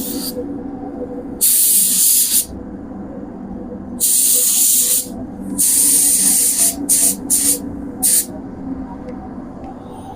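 Pneumatic paint spray gun triggered in bursts of loud hissing spray: three passes of about a second each, then several short quick triggers near the end. A steady hum runs underneath.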